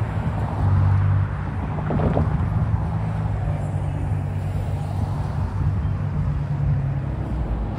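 Road traffic: cars and a pickup truck driving across the railroad crossing, with a steady low engine hum underneath that fades near the end.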